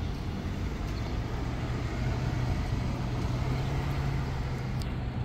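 A car going by on the street, its engine a steady low hum over the general noise of road traffic.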